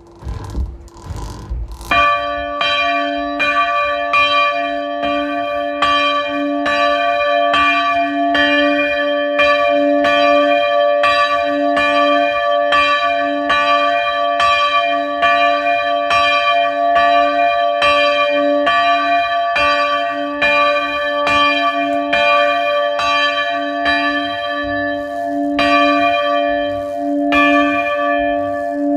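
Middle church bell of a three-bell chapel peal swinging and ringing on its own. After a couple of seconds of low knocking it begins to sound, its clapper striking on each swing in a steady rhythm over a continuous ringing hum.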